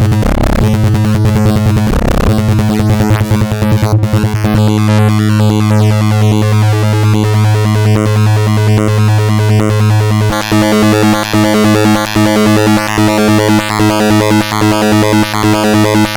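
Make Noise XPO analog oscillator in a Eurorack modular synth playing a patch, with low thumps in the first couple of seconds. About four seconds in the sound changes as the same patch moves from its Vari-Timbre output to its pulse-width-modulated output: a steady low tone under busy higher notes, growing brighter about ten seconds in.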